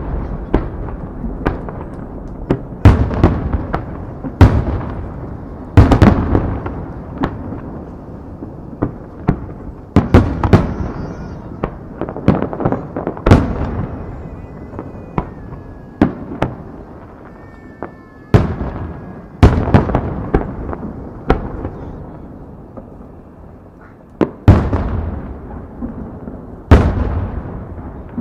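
Aerial fireworks shells bursting in a steady run, a loud boom every second or two, each trailing off in a long rolling rumble. A few faint whistling tones sound about halfway through.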